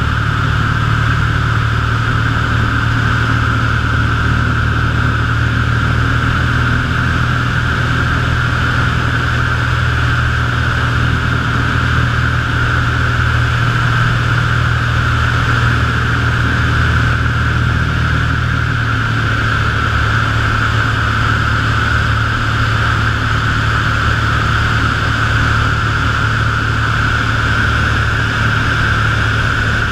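Piper PA-25 Pawnee's piston engine and propeller running steadily in flight, heard from inside the cockpit.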